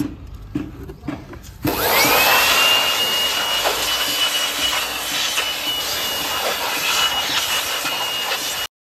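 Light scraping and clicks of work on a brake drum, then an electric power tool switching on about two seconds in: its whine rises quickly and holds steady over a loud hiss, and it cuts off abruptly near the end.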